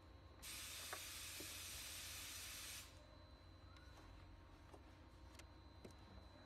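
A steady high hiss cuts in abruptly about half a second in, holds for about two and a half seconds and cuts off just as abruptly. A few faint clicks follow as small wire connectors are handled.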